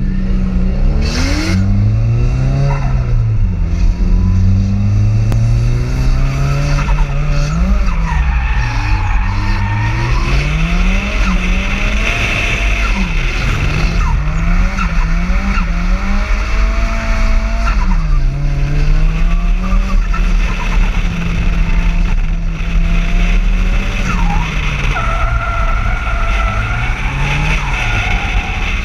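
Nissan 200SX S14 engine revving hard, its revs swinging up and down through a drift, with tyres squealing as the car slides.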